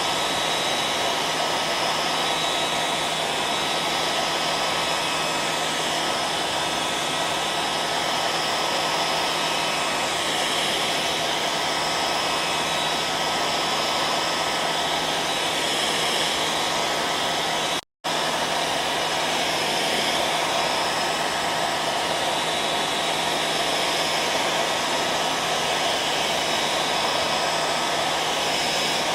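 Electric hair dryer blowing steadily, a dense even rush of air and motor noise with a faint steady whine. The sound drops out for a split second about two-thirds of the way through, then resumes unchanged.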